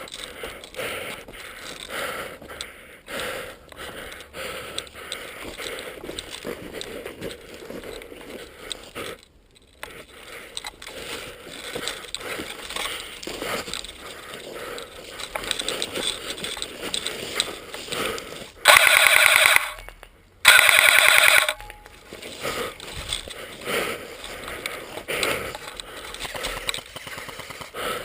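Two bursts of full-auto fire from an airsoft gun, each about a second long with a short gap between, about two-thirds of the way through. Otherwise steady rustling and small clicks of movement and gear.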